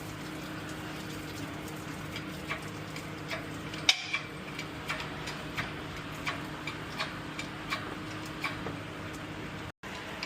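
Slow, evenly spaced clicking, about three clicks every two seconds, with one louder click about four seconds in, over a faint steady hum.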